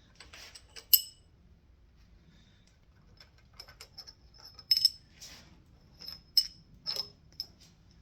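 Metal hand tools and small engine parts clinking against metal: a scatter of sharp, ringing clinks, the loudest about a second in and then a cluster between about five and seven seconds, with lighter ticks between.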